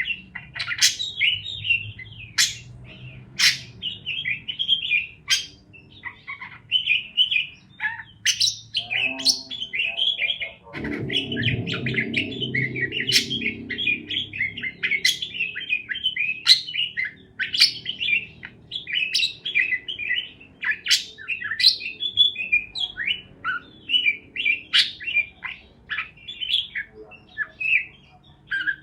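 Parakeets chirping and chattering without pause, in a dense stream of quick, high chirps. A brief low rumbling noise comes in under the chirps about eleven seconds in.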